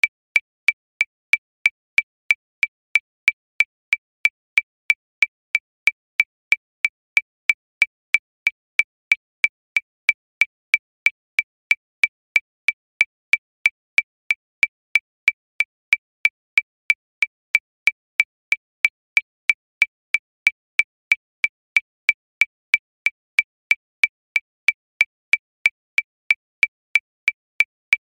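Metronome clicking steadily at 185 beats per minute: about three short, high, evenly spaced clicks a second.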